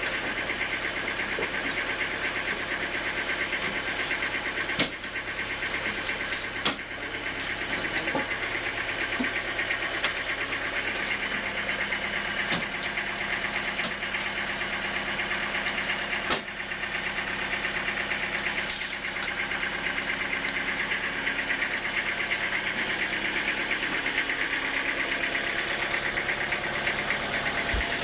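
Sawmill machinery running steadily, with a few sharp knocks, about five and sixteen seconds in.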